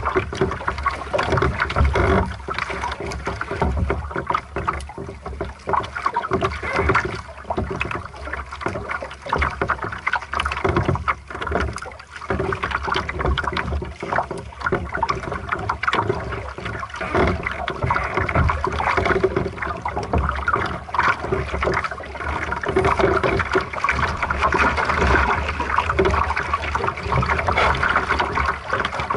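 Water splashing and gurgling against the hull of a small sailboat under way, in irregular surges.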